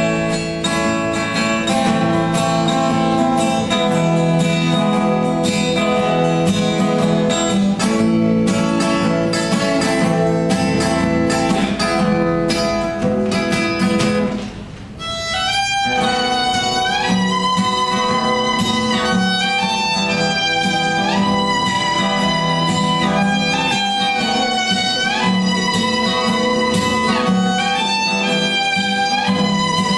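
Violin and acoustic guitar duo playing a slow piece. The guitar plays alone, plucked, for about the first half; after a short pause the violin comes in with long notes played with vibrato over the guitar accompaniment.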